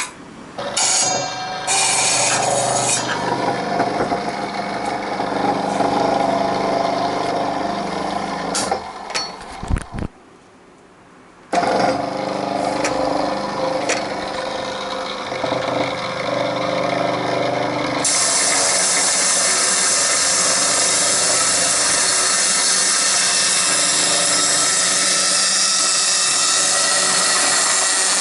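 Power tool working titanium exhaust tubing: a motor whine with grinding. It drops out briefly about ten seconds in, and from about eighteen seconds it settles into a steady, hissing grind.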